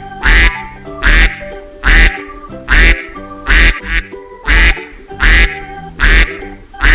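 A duck quacking over and over at an even pace, about one loud quack every 0.85 seconds, nine in all, over background music with sustained notes.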